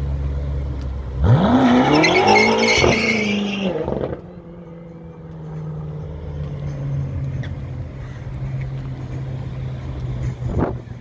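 BMW M5 F10's twin-turbo V8 revving hard as the car launches, about a second in, its pitch rising, with tyre squeal over it for about two and a half seconds. The note then drops away, leaving a steady low engine drone from a coach alongside.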